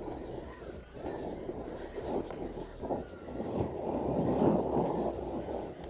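Hardtail mountain e-bike riding over a rough stony limestone track, an uneven rumble of tyres and bike on the rocks that swells loudest a little past halfway.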